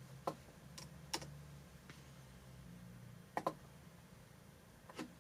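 A few short, sharp clicks from a laptop being operated, including a quick double click about three and a half seconds in, over a faint steady low hum.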